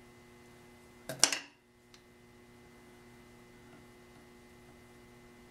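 Metal dividers set down on a drawing board: one brief sharp clatter about a second in, then a faint click, over a low steady hum.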